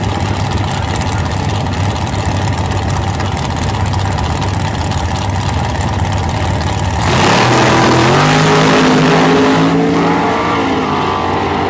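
Dragster engine running at the start line with a fast, lumpy pulse, then going to full throttle about seven seconds in as the car launches. Its note gets louder and climbs in pitch for a few seconds, then eases slightly as the car pulls away down the strip.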